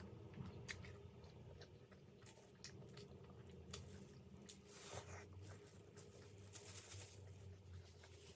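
Soft chewing and wet mouth sounds of a person eating vegetable momo dumplings, with scattered small clicks and a couple of longer squishy stretches.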